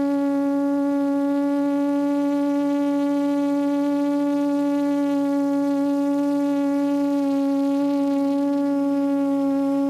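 QAV400 quadcopter's four Lumenier 1100kv brushless motors and 8-inch APC propellers droning at a steady pitch as it climbs and hovers. The sound is heard from the GoPro mounted on the drone.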